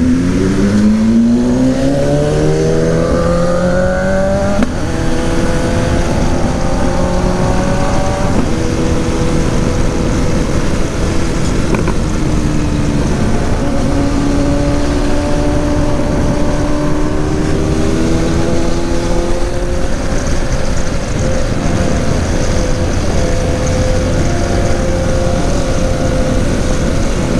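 BMW GS650 motorcycle engine pulling away, its pitch rising through the gears with upshifts about 4.5 and 8 seconds in, then cruising at a fairly steady speed with small rises and falls in pitch. Constant wind and road noise runs under the engine.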